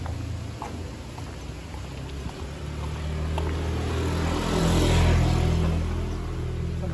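A motor vehicle's engine running as it passes close by, growing louder to a peak about five seconds in and then easing off.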